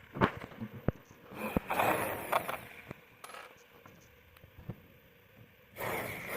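Sharp knocks and small metallic clicks of hardware being handled, a short burst of a power drill around two seconds in, and the drill starting up again and running steadily near the end.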